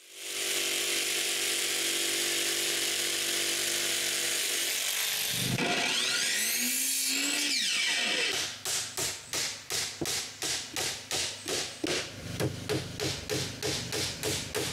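A power tool runs steadily for about five seconds, its pitch shifting and gliding over the next couple of seconds. From about eight seconds in, quick repeated strokes follow at roughly two a second, as in cutting or working wood by hand, for work on the outhouse's corner trim.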